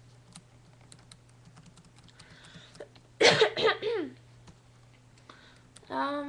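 A woman coughs into her hand in a short, loud fit of several bursts. Faint scattered computer clicks and a low steady hum run underneath, and near the end she hums a held voiced 'mm'.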